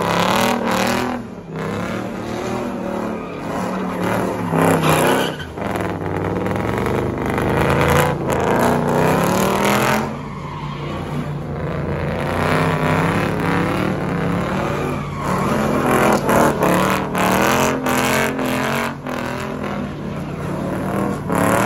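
A car's engine revving hard, its pitch rising and falling over and over with brief drops every few seconds, as the car spins donuts and burns its tyres, the tyres squealing and smoking.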